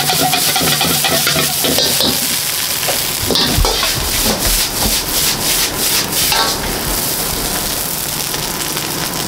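Stir-frying in a wok: food sizzling in hot oil, with frequent clanks of a metal utensil against the pan.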